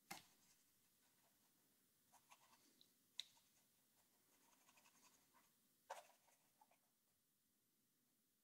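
Near silence broken by faint, short scratchy dabs of a paintbrush on canvas, a handful of strokes with the sharpest about three and six seconds in.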